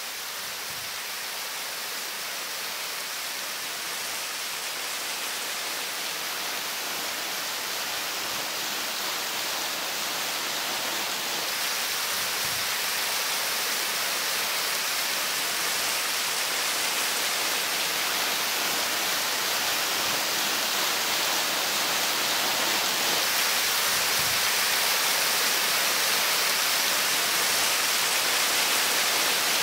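Waterfall rushing: a steady, even hiss of falling water that grows gradually louder.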